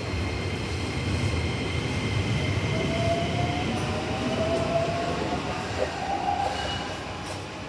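Electric commuter train pulling out of the station with a steady low rumble, its traction-motor whine climbing in pitch from about three seconds in as it accelerates.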